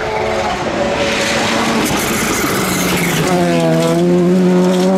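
Rally car engine at high revs on a gravel stage, with the hiss of gravel and dirt thrown from the tyres as it slides through a bend. The engine note grows louder and holds a steady pitch from a little past halfway.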